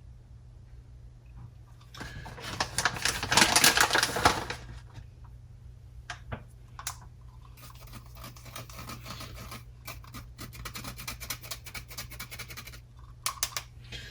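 Hand flour sifter being worked, giving a fast run of clicks and rasps as flour is sifted. The clicking is loudest for a couple of seconds about two seconds in, then goes on lighter and steady for several seconds.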